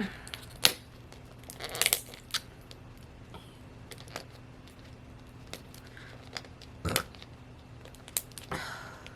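Plastic wrapping on Mini Brands capsule balls being handled and picked at while trying to open them: scattered crinkles, short tearing rustles and sharp clicks a second or two apart.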